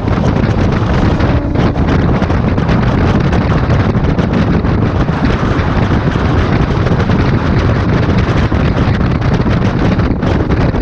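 Central Railway EMU local train running at speed: a steady, loud rumble of wheels on rails, with wind buffeting the microphone held outside the coach door.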